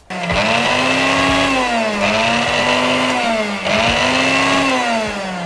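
Electric mixer grinder running at full speed, its stainless-steel jar held shut by hand, grinding mutton with ginger and garlic. The motor's whine starts suddenly, dips in pitch twice as the load shifts, and winds down near the end.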